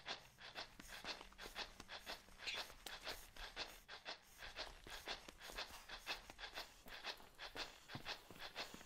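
Dog panting rapidly, about four to five quick breaths a second in an even rhythm.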